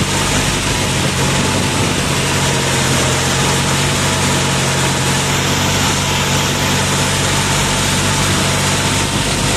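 Swaraj 744 FE tractor's three-cylinder diesel engine running steadily, a low even hum under a constant hiss.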